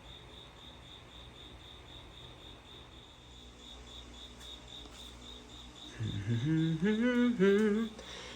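Crickets chirping steadily in a fast, even pulse. About six seconds in, a person starts humming a wavering tune, much louder than the crickets.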